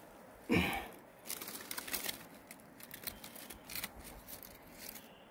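Dry fallen leaves and loose forest soil rustling and crackling as a wild ginseng root is dug out and lifted by hand, with one brief loud sound about half a second in.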